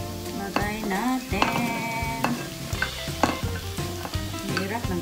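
Browned pork belly sizzling in a frying pan as onion wedges are spooned in from a bowl with a plastic spoon, with several sharp knocks of the spoon against the bowl and pan. Background music plays underneath.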